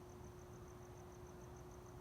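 Faint, steady high-pitched chirping, about six pulses a second, typical of a cricket, over a constant low hum and low background rumble.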